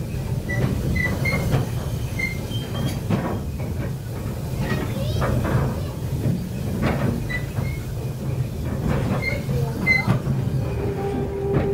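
Slow-moving train heard from an open carriage window: a steady low rumble, with irregular clicks and knocks as the wheels cross rail joints and points.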